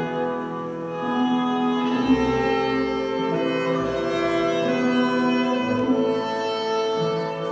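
Orchestral music with bowed strings holding slow, sustained notes that change about once a second.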